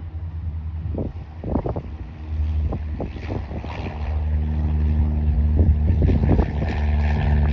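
Cessna 182B Skylane's six-cylinder piston engine and propeller running on the ground, a steady low drone that grows louder about two seconds in and again near four seconds. Gusts of wind buffet the microphone.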